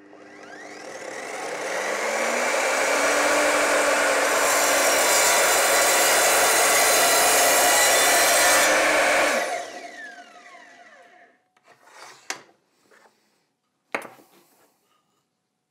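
Evolution R255SMS sliding mitre saw spinning up and its blade cutting through a beech board, a loud steady cut with a hissing high edge. About nine seconds in the motor is switched off and winds down with a falling whine, followed by two short knocks.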